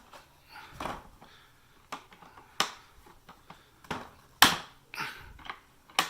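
Hard plastic clacks and knocks from handling and latching a Milwaukee PACKOUT small-parts organizer. There are about six or seven sharp knocks at irregular intervals, and the loudest comes about four and a half seconds in.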